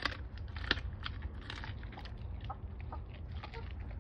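Doberman chewing and crunching a chunk of raw meat, with irregular wet bites and crunches, the loudest a little under a second in, over a low steady rumble.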